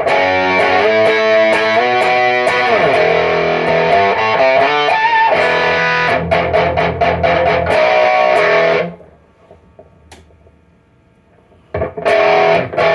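Electric guitar played through the REVV Northern Mauler high-gain pedal, with the blend set to its Swedish Chainsaw (HM-2-style) side, giving a heavily distorted tone. Sustained chords with pitch slides give way to fast chugging. The playing stops about nine seconds in and starts again about three seconds later.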